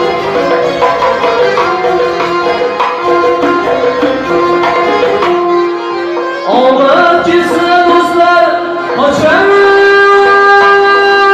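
Live band music: violin and accordion playing a busy melody over a hand drum. About halfway through a man's voice comes in, sliding up into long held notes, and holds one long note near the end.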